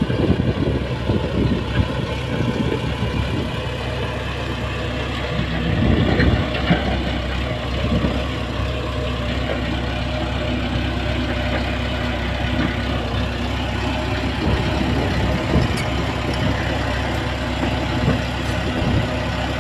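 Shantui bulldozer's diesel engine running steadily, with a few short clanks.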